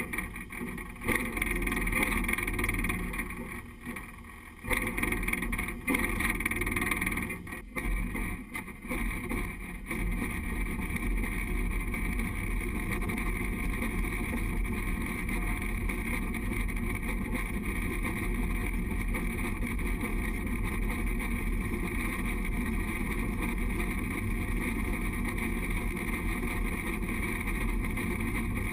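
Steam locomotive getting under way and running along the track. The sound is uneven for about the first ten seconds, with a couple of brief drops, then settles into a steady running noise for the rest.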